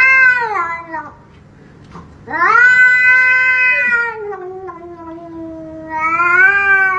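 Domestic cat giving drawn-out, complaining yowls: one trailing off in the first second, a long one from about two seconds in that slides down in pitch, and another starting near the end. The cat is protesting at a hand reaching to pet it.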